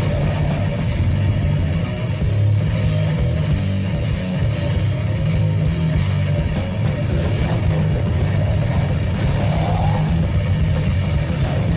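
Heavy rock music with guitars playing steadily from a Sanyo portable radio cassette recorder.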